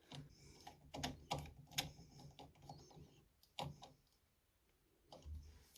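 Faint, irregular small clicks and handling noises, from wires and small parts being worked by hand into a controller's terminal pins.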